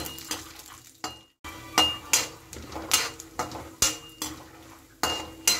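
Metal spatula scraping and clinking against a metal kadhai as peanuts are stir-fried in hot oil, the strokes coming about twice a second. There is a brief drop-out a little after one second in.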